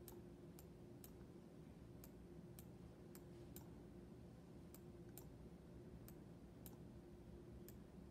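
Faint, irregular clicking of a computer's pointer button, about two clicks a second, over a faint steady low hum.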